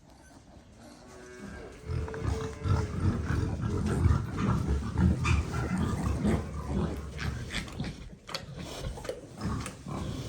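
Pig grunting, a fast irregular run of deep grunts starting about two seconds in.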